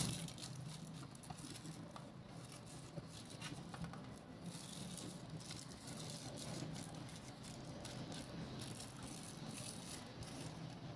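Faint rustling and crinkling of butter paper as hands press and smooth it into a metal cake tin, with scattered soft crackles over a low steady hum.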